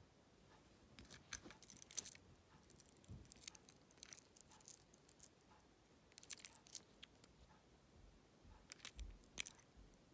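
Small plastic toy pieces handled in the fingers: a star-shaped toy key on a metal ball chain. The sound is faint clusters of light clicks and jingling, several times.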